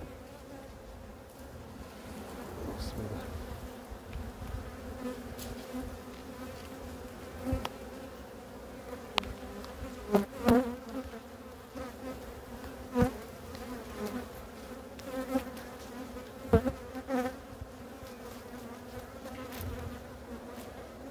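Honeybees buzzing as a steady hum at an open hive, with a few sharp clicks and knocks through the middle.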